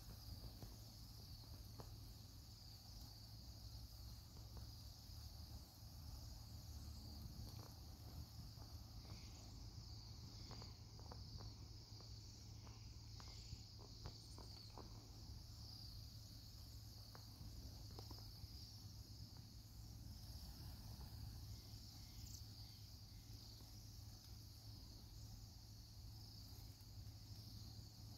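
A large flock of Bohemian waxwings giving a continuous, faint chorus of high, thin trilling calls. A low steady rumble sits underneath, with a few faint clicks about halfway through.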